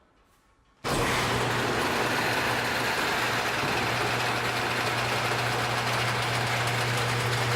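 A machine starts up abruptly about a second in and runs steadily, with a constant low hum under a loud, even hiss.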